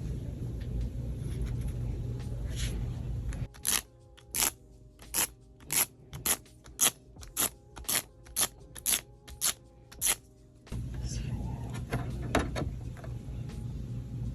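A steady low rumble, then about a dozen sharp clicks or taps at an even pace of roughly two a second for some seven seconds, after which the rumble comes back.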